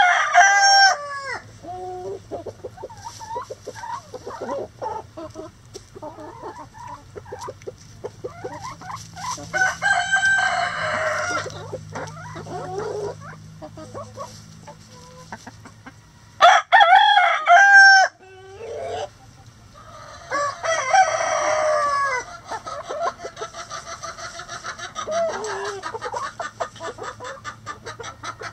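Backyard chickens clucking and scratching, with a rooster crowing loudly about 17 seconds in and the end of another crow in the first second. Fainter drawn-out calls come around 10 and 21 seconds in, over a low steady hum.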